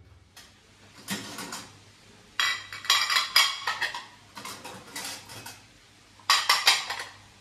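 Dishes clinking and clattering at a kitchen sink as they are washed and stacked into a dish rack, in several short bursts of rattling with quiet gaps between them.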